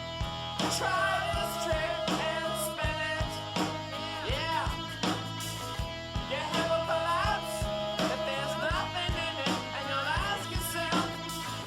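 Rock song with guitar, a steady drum beat and singing.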